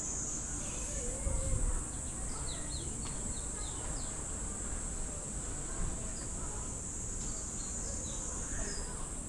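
Insects shrilling steadily at a high pitch, with a quick run of short, falling bird chirps a few seconds in.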